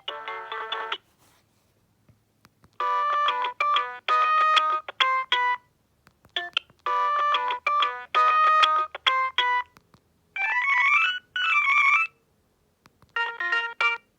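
Alcatel OT-E158 mobile phone's built-in ringtones playing one after another. One tune ends just after the start; after a short pause a bright electronic melody plays the same phrase twice. Then come two swooping tones, each rising and falling, and a new tune starts near the end.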